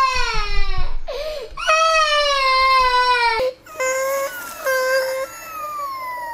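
A two-year-old toddler crying: several long, high wails one after another with short breaks between, each sliding down in pitch as it ends.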